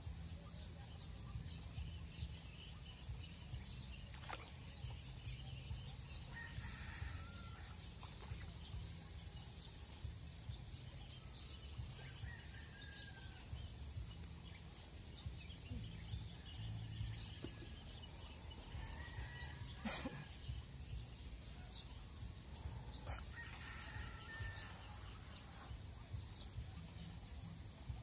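Chickens clucking and crowing in short calls at intervals, over a steady high-pitched buzz, with a few sharp clicks, the loudest about twenty seconds in.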